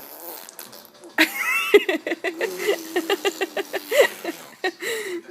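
A baby's voice: a bending squeal about a second in, then a run of quick repeated pulses on one steady pitch, about six a second, like giggling or a buzzing babble.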